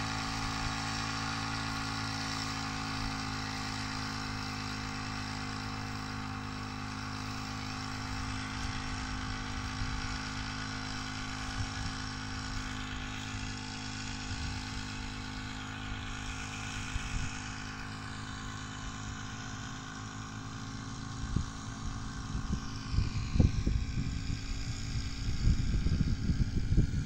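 Small two-stroke engine of a backpack power mist-sprayer running steadily while spraying, its high whine dipping and recovering a couple of times. Wind buffets the microphone in the last several seconds.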